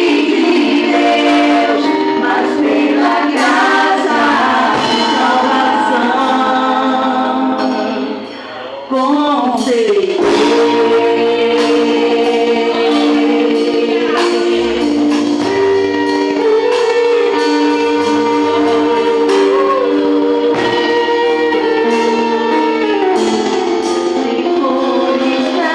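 Worship group singing a gospel song with instrumental accompaniment, female voices in the lead; the sound drops briefly about eight seconds in, then long held notes follow.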